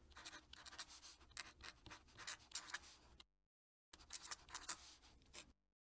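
Fountain pen nib scratching across paper in quick, faint cursive strokes as a signature is written. There is a short pause a little past halfway, and the writing stops shortly before the end.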